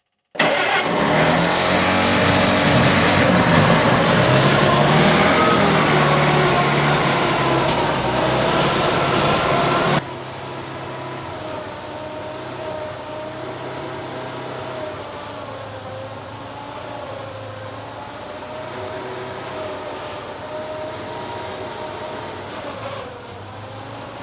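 Ford CL 340 skid loader's gasoline engine running, loud with its pitch wavering up and down for about ten seconds, then cutting suddenly to a quieter, steadier running sound.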